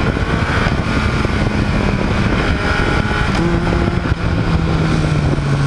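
Motorcycle engine running under way, heard through heavy wind noise on the microphone. About three and a half seconds in, the engine note drops and then keeps sinking slowly as the bike slows.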